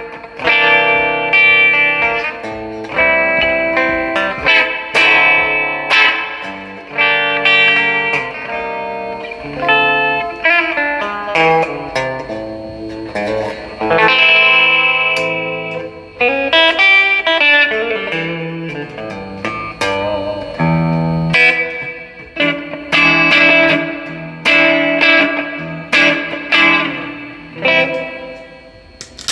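A 1991 Gibson 1957 reissue electric guitar played through a Marshall DSL-1 amplifier: a single-note lead line of picked notes and phrases, with string bends in the middle.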